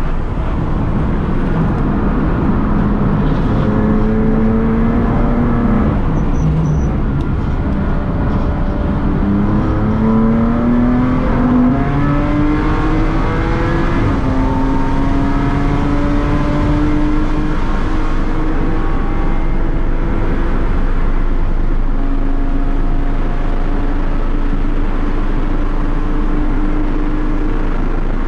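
BMW M2 CS Racing car's twin-turbo straight-six pulling hard at speed, heard from inside the stripped race cabin with loud road and wind noise. The engine pitch climbs steadily in each gear and drops sharply at each upshift, a few times over.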